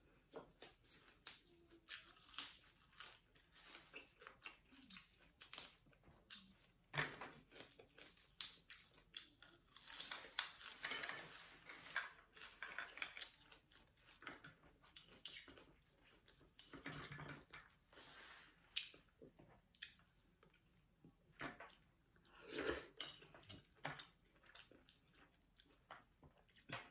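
Faint, close-up eating sounds: chewing and crunching of raw oysters and fresh greens, with scattered light clicks of wooden chopsticks against oyster shells and the plate.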